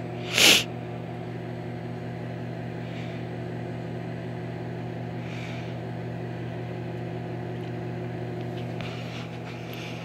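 Microwave oven running, a steady electrical hum with fan noise. A short hiss comes about half a second in.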